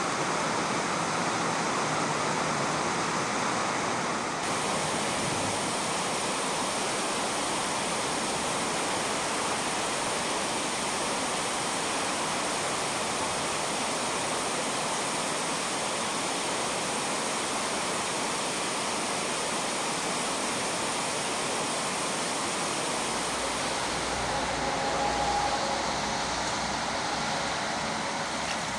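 Steady rush of a shallow river flowing over a gravel riffle, with a faint low rumble joining in near the end.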